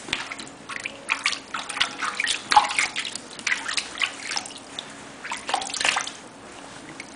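Water splashing and sloshing in a plastic tub as a hand moves through it, in quick irregular splashes that stop about six seconds in.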